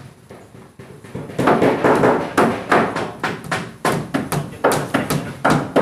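Hammer tapping nails into a plywood board: a fast run of sharp strikes, about three a second, starting about a second and a half in after a few lighter taps.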